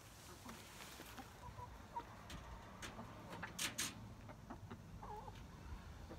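Backyard hens clucking softly, with a few short calls and one wavering call near the end. A few sharp clicks come about midway.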